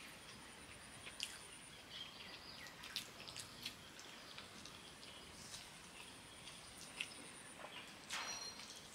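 Eating sounds: chewing, lip smacks and fingers working biryani rice on a banana leaf, heard as scattered small clicks over a faint background hiss, with a brief louder noise near the end.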